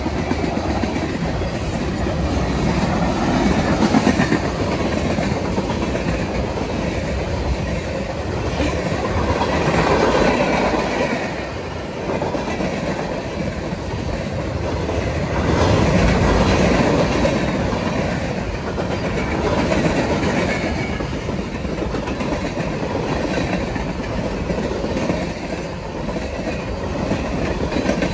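Cars of a mixed freight train passing at speed: the steady noise of steel wheels rolling on the rails, swelling and easing every few seconds as the cars go by.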